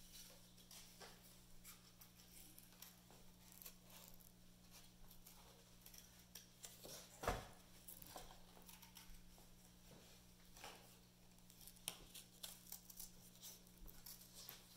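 Faint scratching and clicking of hand work on cardboard, with one louder knock about seven seconds in, over a low steady electrical hum.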